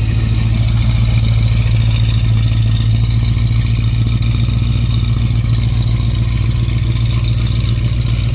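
A 1969 Ford Mustang Fastback's 351 Windsor V8 idling steadily, heard from behind at its exhaust tips. The engine is running cleanly, absolutely perfect.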